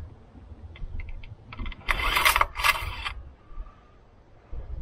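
Engine oil dipstick drawn out of its tube and wiped through a cloth rag, done to check the level after refilling. A few light clicks, then about a second of scraping and rubbing in two strokes.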